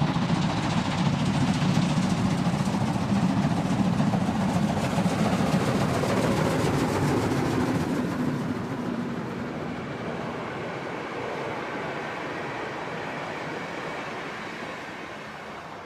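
Steam locomotive 52 8079, a German class 52.80 2-10-0, passing under steam at the head of a passenger train, loud for the first half. From about eight seconds in, the sound of the coaches rolling by fades away as the train leaves.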